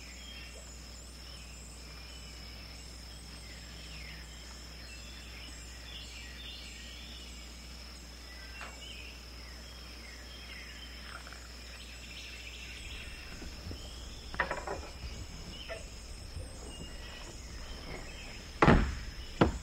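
Outdoor night ambience: many short, high chirps over a steady low hum and a faint high whine. A knock about three quarters of the way in, and a louder one near the end.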